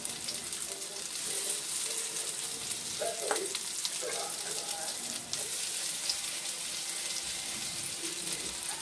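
Banana-peel burger patties sizzling steadily in hot oil in a non-stick frying pan.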